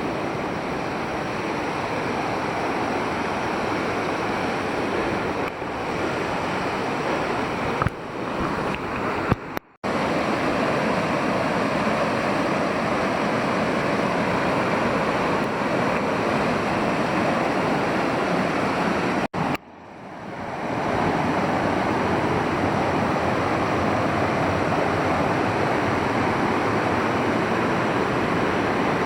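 Waterfall: a steady rush of falling water. It cuts out briefly twice, about a third and two-thirds of the way through, fading back in after the second break.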